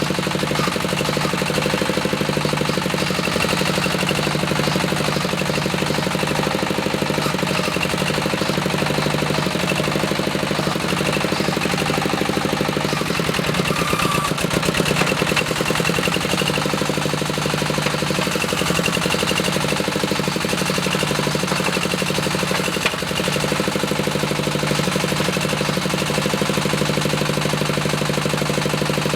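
Diesel engine of a small bore well drilling rig running steadily under load, with a fast, even clatter.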